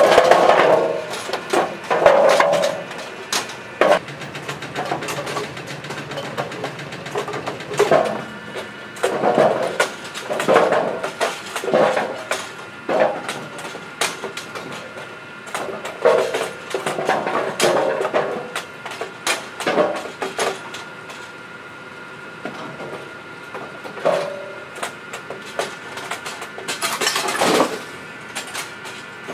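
Automatic bowling pinsetter running: bowling pins clattering and knocking against each other and the machine's metal parts in irregular bursts over a steady mechanical hum. One loud crash comes near the end.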